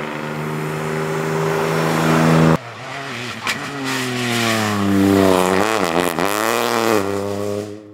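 Opel Corsa Rally4 rally car engine under hard acceleration, revs climbing steadily; after an abrupt cut, the revs drop and pick up again, dipping sharply about six seconds in before rising once more.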